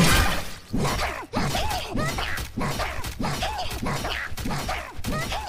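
Anime sound effects: a hard hit right at the start, then a steady run of short, arching cartoon rat squeaks, about two a second, over soft thumps.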